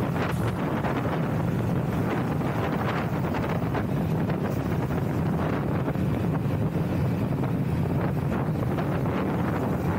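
Steady low rumble of noise with no breaks, like wind buffeting the microphone.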